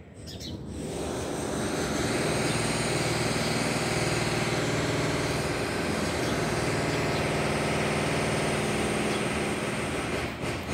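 A steady motor or engine running, which swells over the first two seconds and then holds, with birds chirping.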